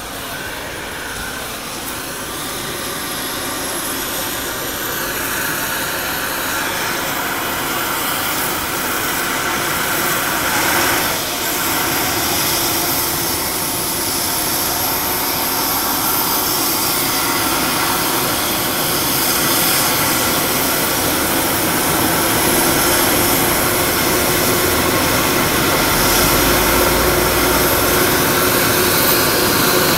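Medical helicopter's turbine engine and rotor running up on the ground for take-off. A high turbine whine rises in pitch while the overall rotor noise grows steadily louder.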